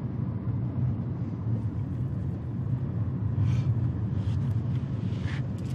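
Steady low road rumble inside the cabin of a moving car.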